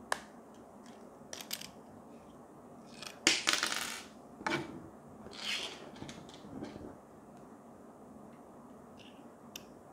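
Small hard plastic clicks and a short rattle from a compact multi-connector holder with snap-in USB-A, Lightning and Micro USB adapter tips as it is handled and turned over. The loudest run of clicks comes about three seconds in, followed by two brief rubbing sounds and a few softer clicks.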